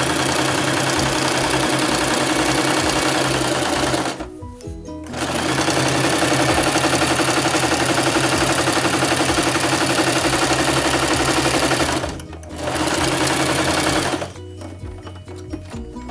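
Singer Prelude electric sewing machine running, stitching a seam through cotton upholstery fabric in three runs with short stops about 4 s and 12 s in, then stopping about 14 s in.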